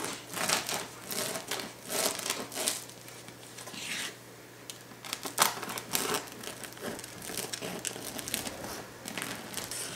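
A bread knife saws back and forth through the hard crust of a freshly baked sourdough loaf, giving a run of crackling, scraping strokes with a lull near the middle.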